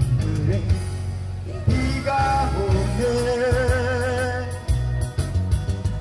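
Live trot-style band music: a steady bass and beat under an acoustic guitar, with a melody line held in wide vibrato about halfway through.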